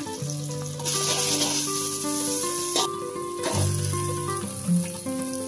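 Chilli-spice paste sizzling in hot oil in a wok, the sizzle swelling for about two seconds about a second in as cold cooked rice goes in, with a few short knocks of the steel spatula. Background music with held notes plays over it.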